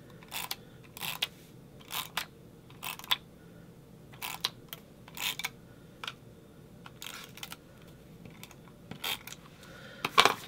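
Paper strips and cardstock rustling and tapping as they are slid and pressed onto a scrapbook page, in short bursts roughly once a second, with a louder one near the end.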